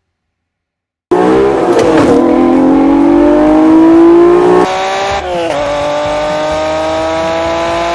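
Supercharged Acura NSX V6 engine accelerating hard, starting abruptly about a second in with its pitch climbing steadily. Past the middle the pitch and loudness drop sharply, then the pitch climbs again.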